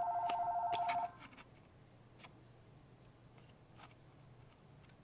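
Electronic telephone ringer warbling; the ring stops about a second in. After that, only a few faint light clicks as cardstock is handled in a craft punch.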